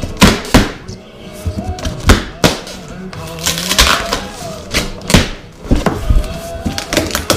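A large cardboard wheel box being handled and opened by hand: a series of sharp thunks and scrapes of cardboard against the hands, the loudest sounds, over background music.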